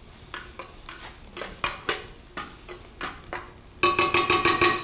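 Metal spoon stirring and scraping onions and freshly added garlic around a hot stainless steel sauté pan, a stroke every half second or so over a faint sizzle. Near the end comes about a second of rapid ringing metal taps, around nine a second.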